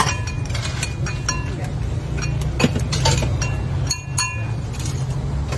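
Chopsticks and a ladle clinking repeatedly against porcelain bowls and an aluminium pot as bowls of noodles are dished up. Short ringing clinks come at irregular moments over a steady low rumble.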